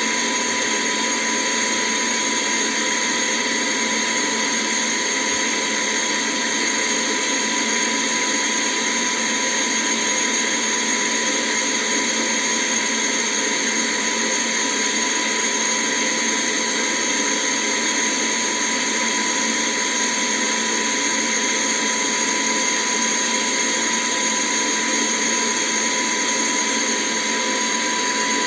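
ILife H70 cordless handheld vacuum cleaner running steadily: a constant motor whine with a strong rushing hiss of air, holding the same pitch and level throughout.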